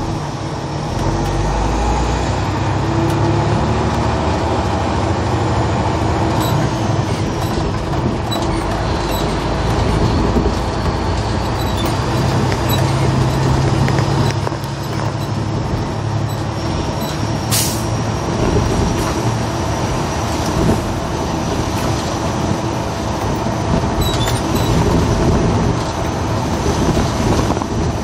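School bus engine and road noise heard from inside the cab while driving, a steady low rumble with a faint high whine that slowly rises in pitch. A single sharp click sounds about two-thirds of the way through.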